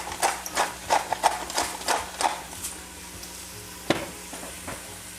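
A utensil stirring and scraping sautéing onions and garlic in an Instant Pot's stainless steel inner pot, about three strokes a second for the first two and a half seconds. After that comes a soft sizzle with a couple of light knocks.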